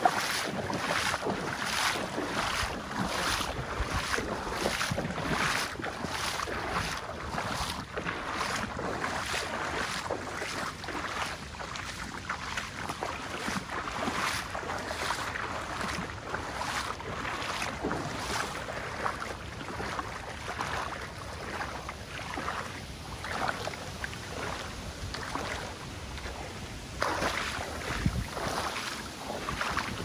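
Footsteps at a steady walking pace, about two a second, over a continuous rush of river water and wind on the microphone. The regular steps give way to more irregular noise after about twenty seconds.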